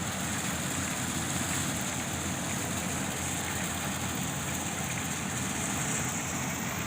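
Yanmar AW-70V corn harvester running steadily, a continuous machine noise with a high hiss over it.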